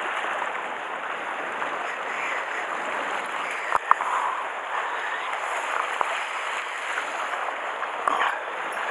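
Steady wash and slosh of sea water against shore rocks. Two sharp clicks come close together about four seconds in, and another near the end.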